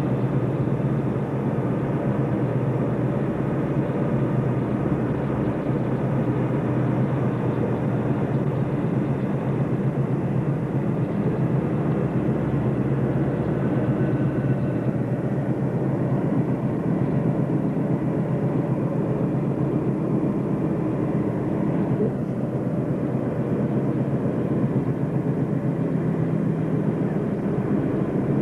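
Steady road and engine noise inside a moving car's cabin, even in level throughout.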